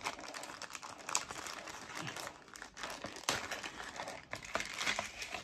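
Clear plastic zip-lock bag crinkling and crackling as hands handle it and work its seal open.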